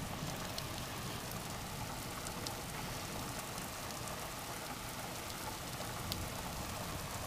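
Heavy rain falling with a steady hiss and a few faint ticks of single drops.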